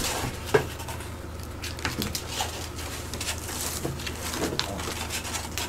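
Scattered light clicks, taps and rustles of paper plates and food being handled at a table, over a steady low hum.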